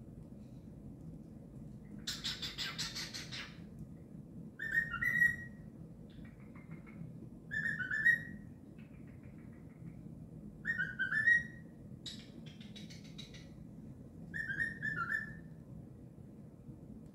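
Cockatiel whistling: four short whistled phrases, each with notes rising at the end, about three seconds apart, with bursts of scratchy chatter between them.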